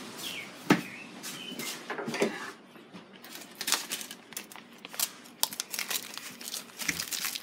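Plastic bag crinkling and rustling as it is handled and cut open with scissors, amid irregular small clicks and knocks; a sharp knock a little under a second in is the loudest sound.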